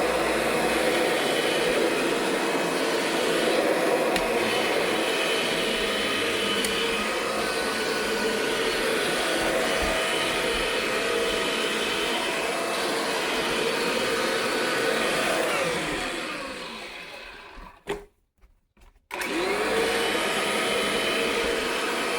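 1998 Kirby Generation 5 upright vacuum's motor running steadily. About sixteen seconds in it winds down to a stop, there is a click, and about a second later it spins back up with a rising pitch. The owner puts the trouble down to its faulty speed switch.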